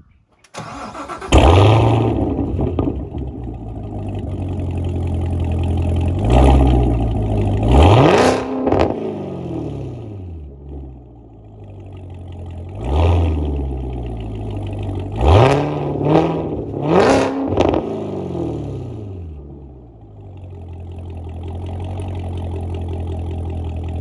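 Chevrolet Corvette C7 ZR1's supercharged V8 through an ARMYTRIX valvetronic exhaust, starting with a sharp flare of revs about a second in and then idling. It is blipped in a series of short revs, each rising and falling in pitch, a pair around the middle and three in quick succession later, before settling back to a steady idle near the end.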